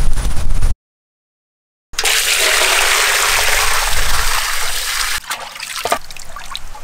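After a second of silence, water is poured from a metal bucket into a large metal basin holding a beef leg: a steady gush for about three seconds that stops suddenly. Then splashing and dripping as the leg is lifted and washed in the water.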